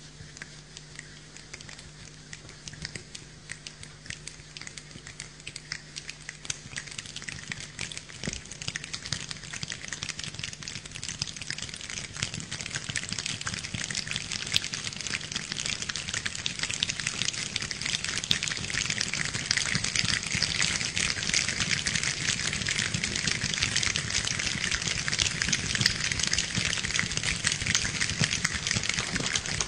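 A choir imitating rain with their hands, many fingers snapping and hands clapping in a dense patter of small clicks. The patter starts faint and thickens and grows steadily louder, like a shower building into a downpour.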